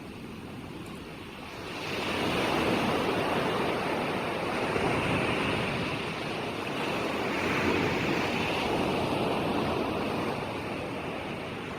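Ocean surf: waves breaking and washing in, a brief lull at the start, then a wave swelling in about two seconds in and a long continuous wash that rises and eases gently.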